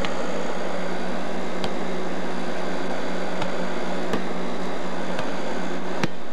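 Steady hiss with a low hum, broken by several short sharp taps of a volleyball being struck during play, the sharpest near the end.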